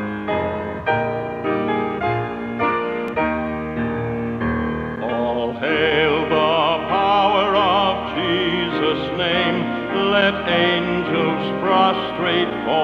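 A hymn played on piano, one clear chord or note after another. About five seconds in, a solo voice with strong vibrato comes in singing over the piano.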